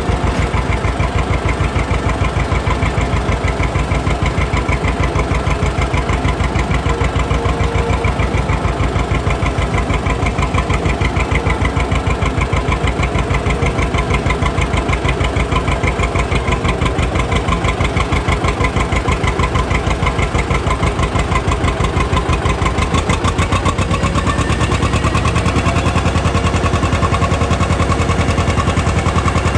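John Deere 630 two-cylinder tractor engine running while the tractor is driven, with a steady, even beat of exhaust pulses. It gets a little louder and heavier in the last several seconds.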